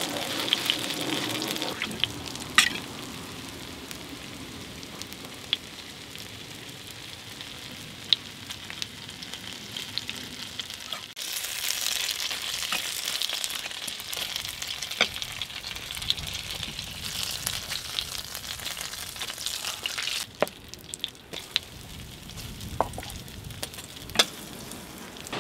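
Hotteok, Korean sweet filled pancakes, sizzling in oil on a flat griddle: a steady frying hiss that grows louder about halfway through. A few sharp clicks cut through it now and then.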